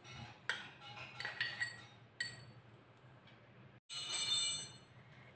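Metal spoon clinking and scraping against glass bowls as chopped tomato is tipped from a small glass bowl into a larger one. There are a few light clinks with brief ringing in the first two seconds, and a short ringing passage about four seconds in.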